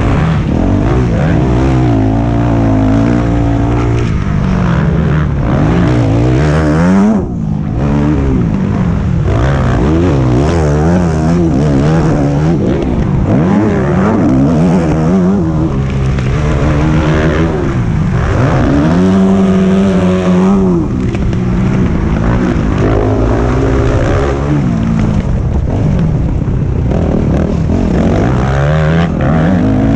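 Motocross bike engine heard from an onboard camera, revving hard and repeatedly climbing and falling in pitch through gear changes and throttle on and off. The engine sound dips briefly about seven seconds in.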